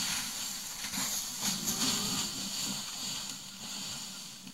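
African forest elephants walking and scuffing their feet through dry leaf litter, a rustling of leaves that is loudest around two seconds in and eases off towards the end.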